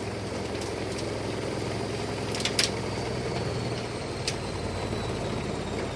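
Candy washing machine running with a steady motor hum, a bottle of water tumbling in its drum. There are a few sharp clicks or knocks about two and a half seconds in and again a little past four seconds.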